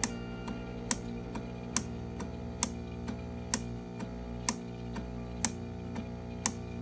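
SAR-1000 small animal ventilator cycling at about 60 breaths a minute: a sharp valve click about once a second, with a softer click between each pair as it switches from inspiration to expiration. Soft background music plays underneath.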